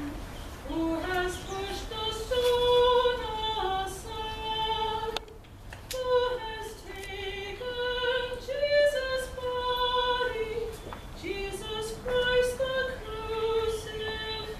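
A solo woman's voice singing a slow hymn melody in held notes, accompanied on a digital piano.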